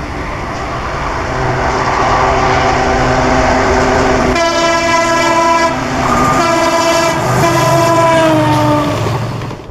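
WDP 4D diesel locomotive hauling an express train passes at speed, engine rumble and wheels on the rails growing louder. Its horn sounds twice from about halfway: a short blast, then a longer one whose pitch falls as the locomotive goes by.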